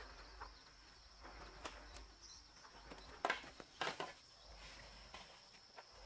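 Scattered short, sharp rustles and knocks, about five in six seconds, the loudest two near the middle, over a faint steady high-pitched insect drone.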